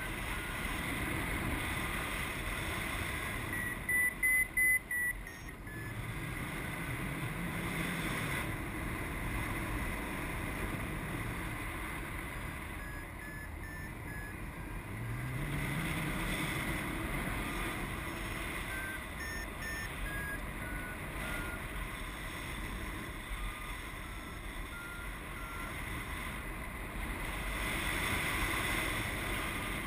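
Paragliding variometer beeping: short single beeps whose pitch steps up and down as the climb rate changes, with a quick run of loud, high beeps about four seconds in, a sign of stronger lift. Wind rushes over the microphone throughout.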